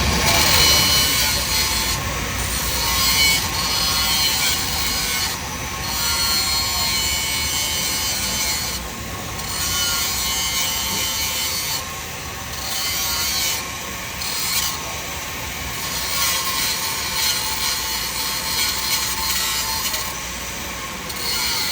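Steel at a pipe weld joint being ground down, a rough rasping noise broken by short pauses every few seconds as the tool is lifted. The edge of the weld is being feathered to zero.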